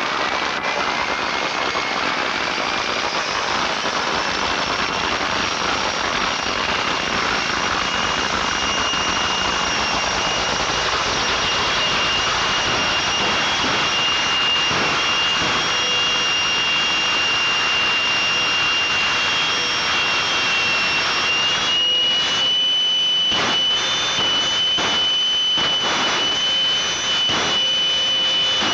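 Jet-powered funny car's turbine running at the starting line: a steady loud roar with a high whine that rises in pitch over the first few seconds and steps up again a little after twenty seconds. Several short crackles follow in the last few seconds.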